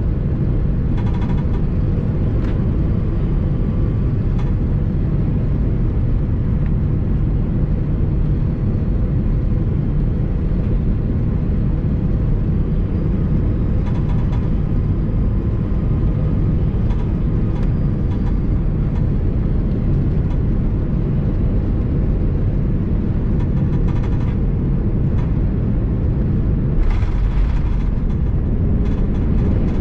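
Steady low rumble of an Airbus A330-200 airliner heard inside the cabin, with a few light rattles and clicks.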